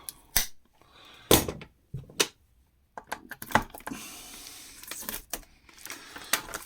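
Hand tools and hard plastic parts of a mini fridge clicking and knocking as its cover is worked loose: a few sharp knocks, the loudest about one and a half seconds in, then a stretch of light scraping and clicking.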